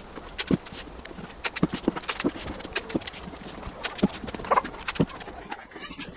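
A run of sharp, irregular taps and knocks, a few a second, with a short lull near the end.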